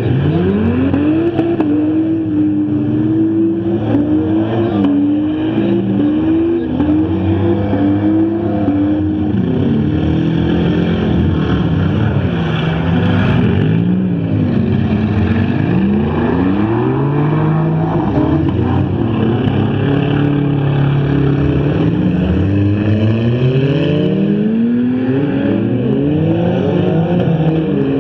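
Several front-wheel-drive stock cars racing at once, their engines revving up and down over one another in repeated rising and falling swells as the drivers accelerate and lift.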